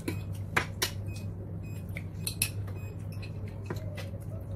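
Metal spoon and cutlery clinking against a ceramic bowl and plates: a handful of sharp clinks, the loudest about half a second and a second in, over a steady low hum.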